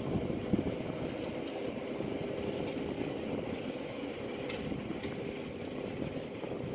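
Steady hum of ship machinery with a constant tone running through it, and a little wind on the microphone in the first moment.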